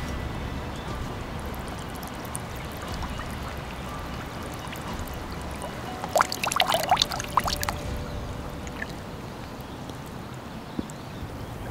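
A person wading through swamp water, legs sloshing with each step, with a burst of louder splashing about halfway through.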